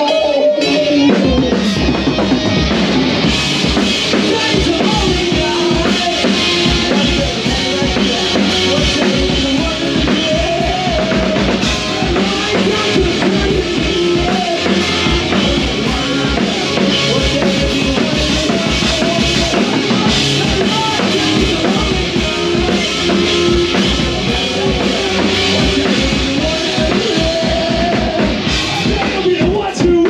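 Punk rock band playing live at full volume: drum kit pounding with kick and snare under electric guitar and bass, in a passage without singing.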